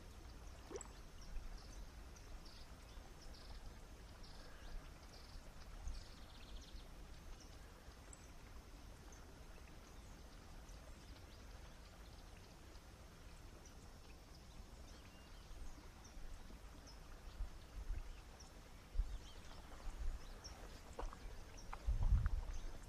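Quiet outdoor ambience with faint, scattered high chirps and dull low thumps that come more often in the last few seconds.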